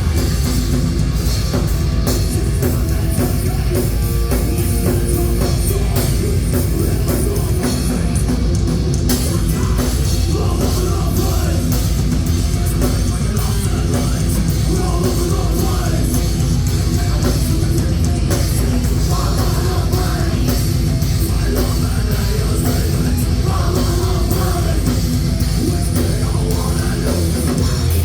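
Loud heavy rock music with drum kit and distorted guitar, playing steadily without a break.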